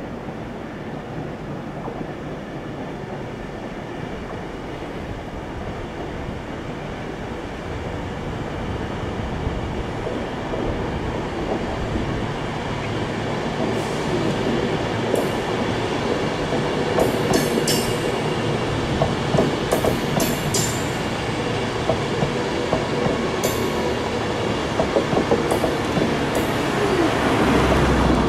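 Avanti West Coast Class 390 Pendolino electric train approaching and passing, its wheel-on-rail rumble growing steadily louder, with sharp clicks of the wheels on the track from about halfway.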